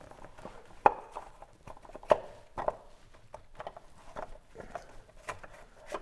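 Irregular plastic clicks and knocks as the oil filter cap of a VW 1.6 TDI is screwed back onto its housing by hand with a new filter inside. The sharpest knocks come about one and two seconds in.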